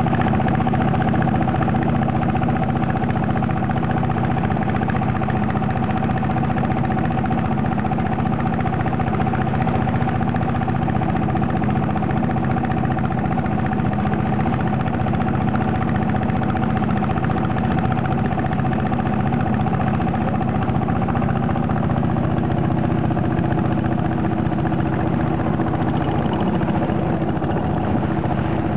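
Engine of a narrow wooden long-tail boat running steadily at cruising speed, heard from aboard, with water and wind noise along the hull.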